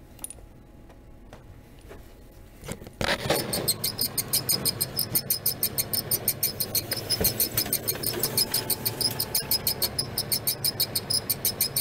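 Kyocera M3540 printer squeaking: a fast, high-pitched squeak repeating about five or six times a second starts suddenly about three seconds in, over the printer's running noise. This squeak is the printer's noise fault.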